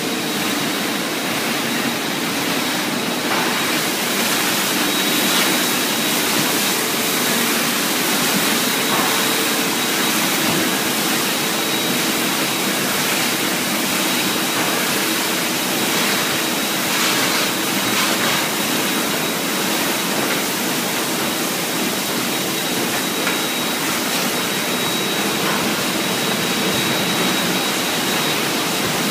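Automatic car wash in operation: a steady loud rush of falling foam and water from an overhead wax applicator and spinning brushes, over a machine hum and a thin high whine.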